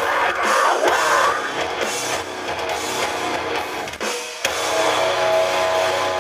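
Live deathcore band playing loud distorted electric guitars and drum kit, with a vocalist screaming into a microphone. About four seconds in the band stops briefly, then crashes back in together.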